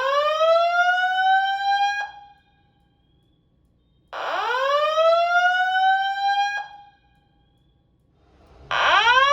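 Simplex 2903-9102 fire alarm with 2902-9713 sounding a whoop tone. Each whoop rises in pitch over about two and a half seconds, then holds near its top, and repeats after a gap of about two seconds. Two full whoops are heard, and a third starts near the end.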